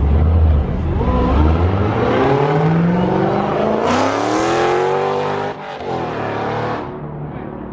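Camo-wrapped muscle car doing a burnout: the engine revs climb steadily in pitch for about four seconds over a rising hiss of tyre noise, then drop off and fade near the end.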